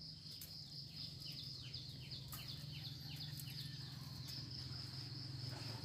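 Faint outdoor background: a steady high insect trill like crickets, with a run of short falling chirps about a second in and a steady low hum underneath. A few faint clicks are also heard.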